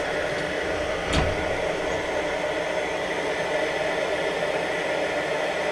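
Coleman 168K kerosene pressure lamp with an R55 generator burning at full pressure: a steady, fierce hiss from the vaporised kerosene at the burner. One light knock about a second in as the glass shade is set in place.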